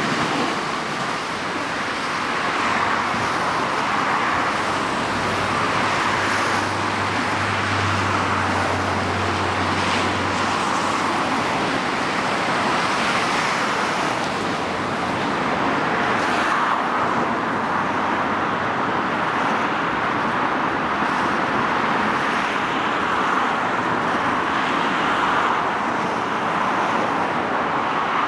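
Steady road-traffic noise, the continuous hiss of passing motor vehicles, with a low hum that swells for several seconds near the start.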